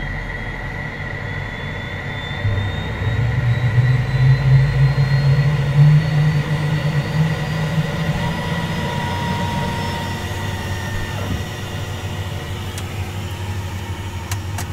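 Right-hand Pratt & Whitney Canada PW615F turbofan of a 2010 Cessna Citation Mustang spooling up after light-off during its engine start, heard inside the cockpit: a slowly rising turbine whine over a steady high tone, with a low rumble that swells about two to three seconds in and eases off after about eight seconds. It is a good, normal start, the engine coming up to idle.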